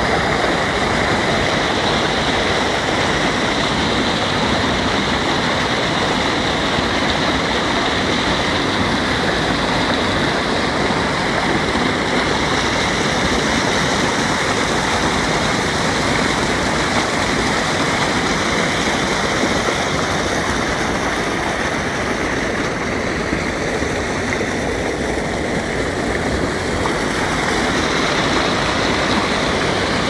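Small waterfall: water pouring over a rock ledge and rushing across a sloping rock bed just in front of the microphone. It makes a loud, steady rush.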